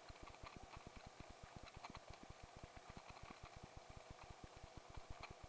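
Faint, rapid, even thudding of a helicopter's main rotor, about ten to eleven beats a second, with scattered light clicks above it, picked up by a camera mounted on the helicopter's skid.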